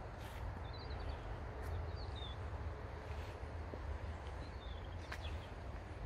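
Rural outdoor ambience: a few short high bird chirps, three in all, over a steady low rumble, with a few faint clicks.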